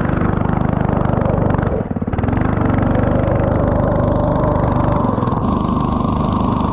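A vehicle engine running under load, with a short dip in power just before two seconds in before it picks back up and runs on steadily.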